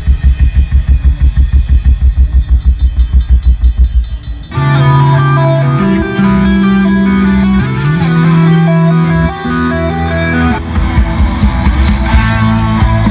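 Rock band soundcheck playing through a large outdoor PA: a fast, even low thumping for the first few seconds, then about four and a half seconds in bass and electric guitar come in with a melodic riff over the drums.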